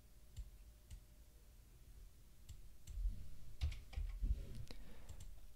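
Faint clicks from a computer mouse and keyboard, a few scattered taps, with soft low thumps from about three seconds in.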